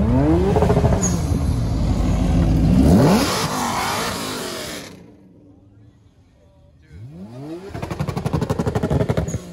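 Car engines accelerating hard. One car revs up, shifts and revs up again, then fades away by about five seconds in. A second car accelerates from about seven seconds in with a fast, rapidly pulsing exhaust note.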